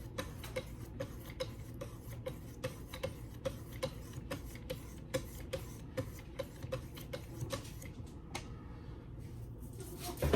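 1000 grit stones of a Wicked Edge guided sharpener stroking along a D2 steel knife blade in a quick even rhythm, about three scraping clicks a second. The strokes stop about eight seconds in.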